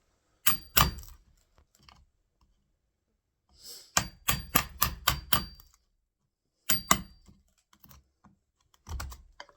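Hammer striking a wood chisel, chopping a recess into the door frame for the latch strike plate. Sharp knocks with a brief metallic ring: two blows, then a quick run of about seven, then two more, and one near the end.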